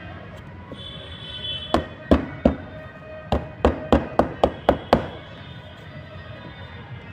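A series of sharp knocks or taps, about ten in all: three spaced strikes, then a quicker run of about four a second, over background music.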